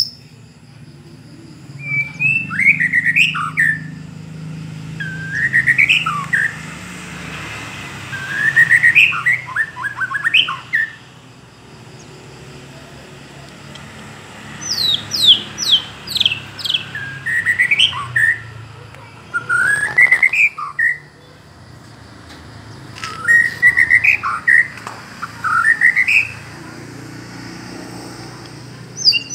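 White-rumped shama (long-tailed murai batu) singing in separate bursts of varied whistled phrases a few seconds apart. About halfway it gives a quick run of high falling notes.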